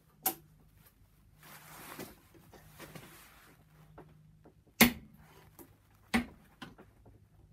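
Click-type torque wrench, loaded by a weight hanging from its handle, giving three sharp metallic clicks as it breaks over at its set torque during a calibration check: one just after the start, then two more about five and six seconds in, the one near five seconds the loudest. Soft clothing rustle between the first two clicks.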